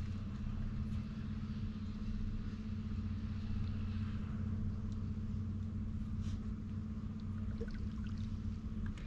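Bow-mounted electric trolling motor on a bass boat running with a steady low hum, cutting off near the end, over light water sounds against the hull.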